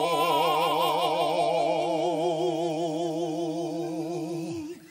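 A singer holding one long mock-operatic note with a wide, wobbling vibrato, which sags in pitch and breaks off about four and a half seconds in.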